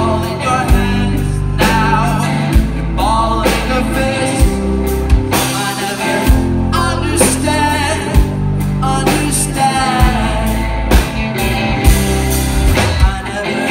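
A rock band playing live: a male lead voice singing over electric guitars, electric bass, keyboard and a drum kit, with drum hits about once a second.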